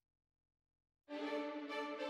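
Dead silence, then instrumental background music starts abruptly about a second in, with sustained held notes.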